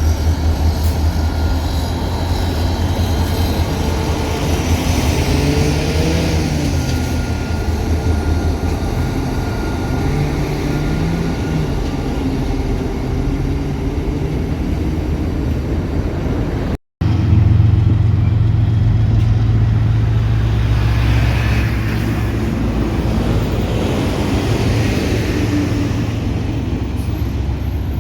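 Union Pacific freight train's diesel locomotives running, a loud, steady low rumble. It drops out briefly about two thirds of the way in and comes back louder.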